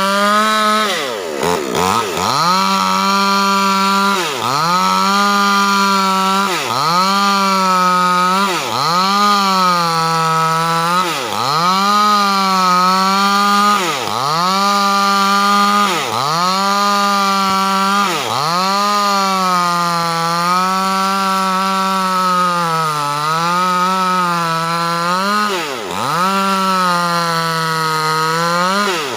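Proquip mini chainsaw running hard while cutting lengthwise through a large timber beam. The engine note sags under load about every two seconds and picks back up as the chain bites and eases.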